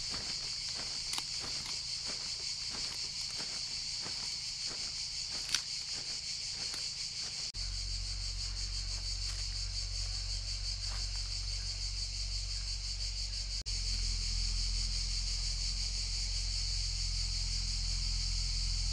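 A steady, high-pitched chorus of insects chirring. Faint regular clicks run through the first several seconds, and a low steady rumble comes in about seven seconds in.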